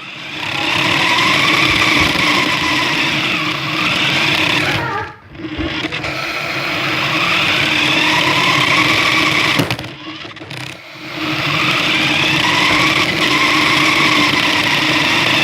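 Remote control car's electric motor and gears whining while running, in three long runs with brief stops between them, the pitch wavering as the speed changes.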